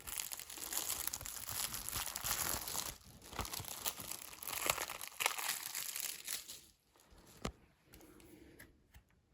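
Plastic shrink wrap being torn and crinkled off a Blu-ray case, stopping about six and a half seconds in. A single sharp click follows about a second later.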